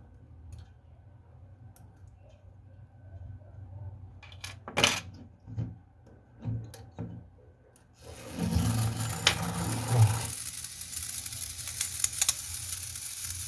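Small metal clicks and knocks of clock parts and tools being handled as the pallet fork is taken out of an alarm clock movement. About eight seconds in, a steady hiss starts and keeps going.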